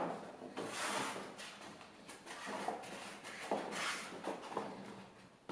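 Hands sliding along and pressing down a large sanding belt stretched over a long wooden block, making a few soft scraping swishes as the abrasive is rubbed.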